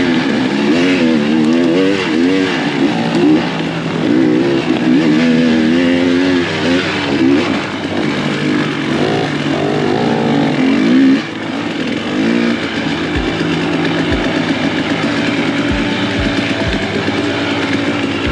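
Dirt bike engine revving up and down as the throttle is worked, its pitch rising and falling repeatedly, then running steadier and lower after about twelve seconds, with a few short low thumps near the end.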